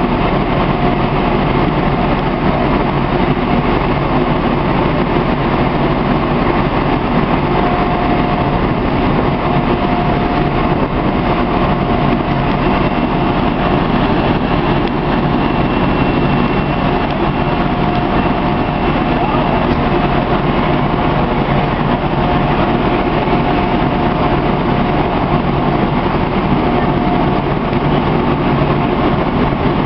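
A heavy engine running steadily and loudly, with a faint steady whine over its drone, typical of a fire engine running at a fire scene.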